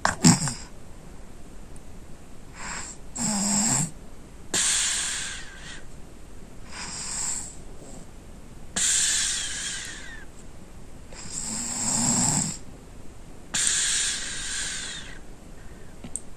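Sleeping child snoring: a breath every one to two seconds, two of them with a low rattling snore and airy breaths between. A brief loud sound right at the start is the loudest moment.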